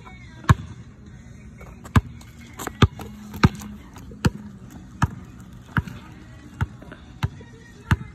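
Rubber basketball bouncing on asphalt: a string of about ten sharp single bounces, a little more than one a second. The first bounce, about half a second in, is the ball coming down from the hoop after a made shot, and the rest are dribbles.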